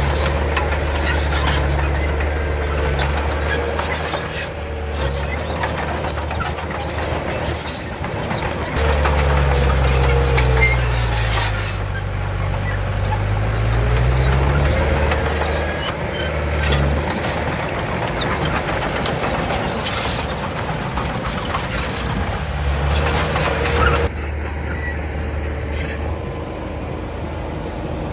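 Komatsu D31 bulldozer's diesel engine working under load, its pitch falling and rising again about halfway through as the dozer pushes soil, with high squeaks from the machinery over it. It settles to a quieter, steadier run near the end.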